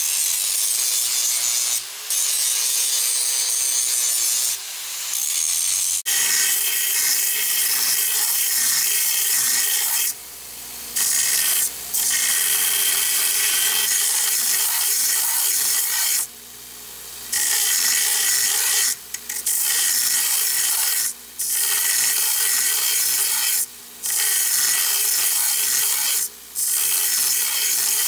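Angle grinder with a grinding wheel grinding a thick steel cannon barrel, with two brief dips as it is lifted off. About six seconds in this gives way to a belt grinder sanding the steel barrel smooth, the noise dropping out briefly every few seconds as the piece is pulled off the belt.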